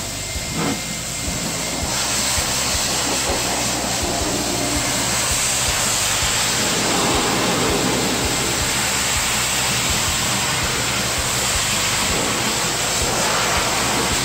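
Pet grooming dryer blowing air through its hose onto a wet dog's coat: a steady, loud rush of air with a thin high whine.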